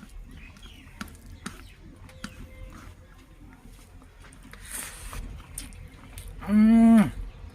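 A man eating: soft chewing and lip-smacking clicks, then about six and a half seconds in a loud, short "mmm" hum of enjoyment that drops in pitch at the end.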